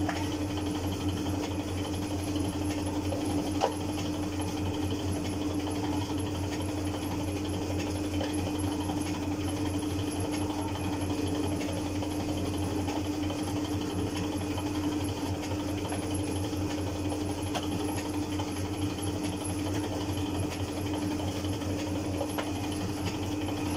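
Motor-driven noodle machine running steadily, its rollers pressing out a sheet of flour dough, with a constant hum and a steady tone. A single click about three and a half seconds in.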